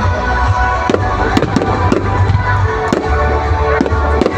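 Aerial fireworks bursting in a display: a series of irregular bangs over loud music with heavy bass.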